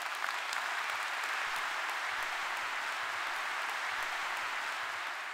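Large audience applauding, steady continuous clapping.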